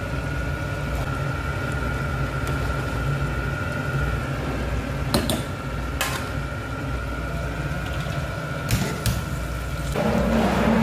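Steady low rumble with a faint high whine from a gas hob where a potato-and-meat fry and a pot of dal are cooking, with a few sharp clicks of pans or utensils about halfway through.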